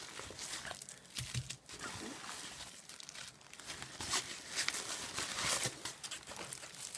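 Plastic packaging crinkling and rustling as it is handled, with irregular crackles that get a little louder in the second half.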